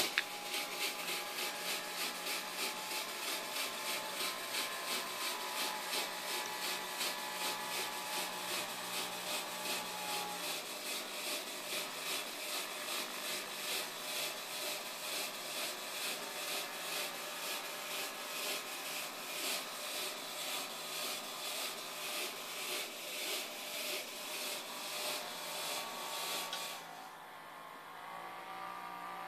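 Fog machine switched on by its wireless remote with a click, its pump running and pushing out fog with a rhythmically pulsing hiss. The hiss cuts off suddenly near the end.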